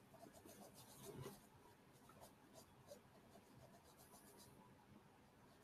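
Near silence: faint rustling of a hand stroking a puppy's fur, with a few soft ticks.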